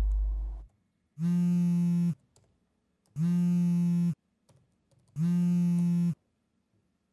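Mobile phone on a wooden desk buzzing with an incoming call: four buzzes of about a second each, two seconds apart. A low hum cuts off just before the first buzz.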